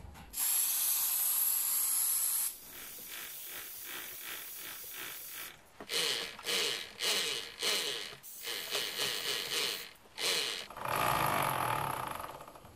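Aerosol chain lubricant sprayed onto a motorcycle drive chain: a long hiss, then short spray bursts about two a second and another hiss near the end. In between, the chain ticks steadily as the rear wheel is turned to work the lube in.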